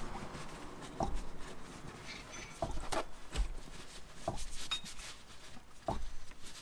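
Blue paper shop towels being handled and rubbed, several short rustles and knocks about a second apart. Under them, a faint steady trickle of old engine oil running from the open drain plug into the drain pan.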